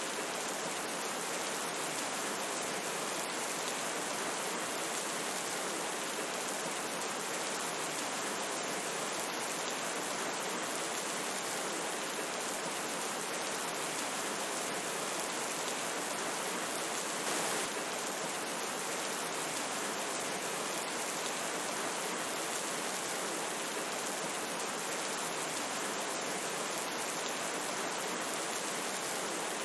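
Steady rain together with a river's running water, an even hiss with fine patter, swelling briefly about 17 seconds in.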